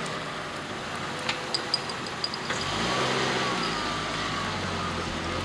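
Car engine running, its pitch rising about halfway through as it pulls away. A few short sharp clicks come between one and two and a half seconds in.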